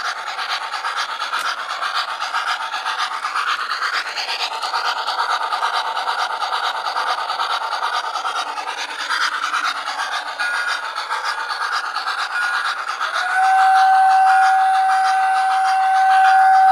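O-gauge model trains running on the layout's track, a steady rolling rattle. About three quarters of the way in, a model steam-locomotive whistle starts and is held as one long steady blow.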